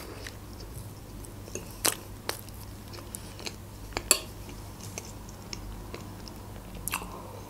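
Close-up chewing of a mouthful of soft cream cake, with a few sharp clicks of a metal fork against a plate, the loudest about four seconds in.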